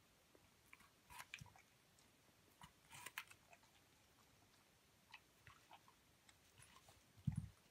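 A young Hamiltonstövare dog biting and chewing pieces of apple, with scattered crisp crunches, a cluster about a second in and another about three seconds in. A dull thump near the end is the loudest sound.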